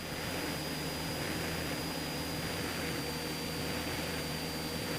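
Cessna 172SP's four-cylinder Lycoming engine and propeller droning steadily in cruise, heard inside the cabin, with a faint steady high whine.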